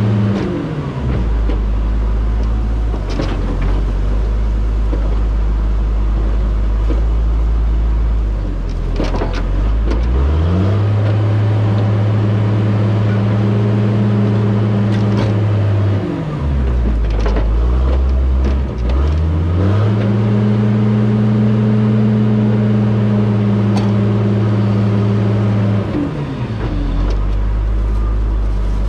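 Large diesel engine of heavy logging equipment throttling up and down in cycles: it drops to a low idle about a second in, revs up twice for several seconds at a time, and falls back to idle near the end. A few short metal clanks come through.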